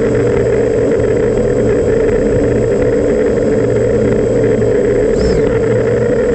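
Brushless motors of a 5-inch FPV quadcopter (BrotherHobby 2206 2450 kV with Gemfan Flash props) spinning at idle after arming, the quad still sitting on the ground. It makes a loud, steady whirring hum that does not change.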